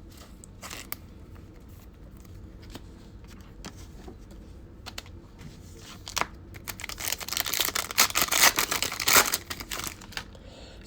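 Wrapper of a Select basketball card pack being torn open and crinkled, with light handling clicks at first. The crinkling grows loud and busy from about six and a half to nine and a half seconds in.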